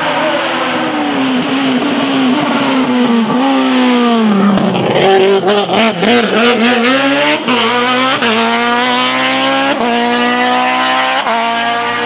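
Tatuus Master single-seater race car engine braking and downshifting into a hairpin, its pitch falling, then stuttering through the turn. It then accelerates hard out of the turn, the pitch climbing in steps with upshifts about 8, 10 and 11 seconds in.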